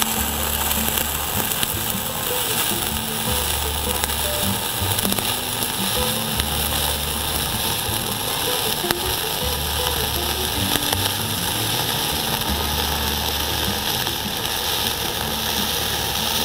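Dual-shield flux-core welding arc on 0.045-inch wire at 25 volts, crackling and sizzling steadily.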